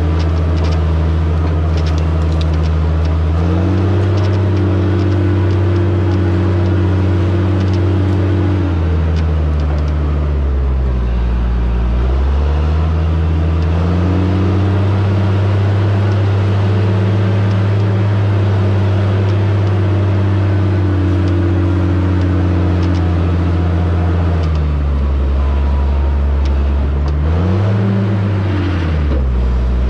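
Diesel engine of a John Deere logging machine working close by. It speeds up about three seconds in, drops back to a lower speed around ten seconds, climbs again and holds until near the end, then drops, with one short rev just before the end.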